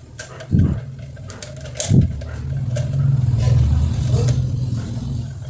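A plastic rim ring being worked onto a table fan's wire grille: two knocks about half a second and two seconds in, with light clicks of plastic on wire. Under it a low engine rumble builds after the second knock and holds.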